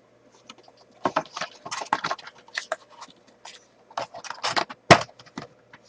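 Irregular crinkling, rustling and light tapping of packaging as a box of hockey card packs is handled, with one sharper tap about five seconds in.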